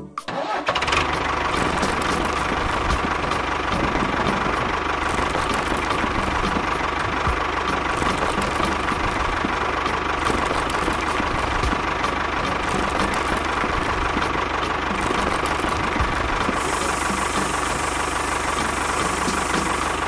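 A motor running steadily with a constant whine, starting about half a second in.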